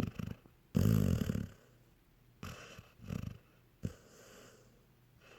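Dog snoring in its sleep: one loud, drawn-out snore about a second in, then softer, irregular snores and breaths.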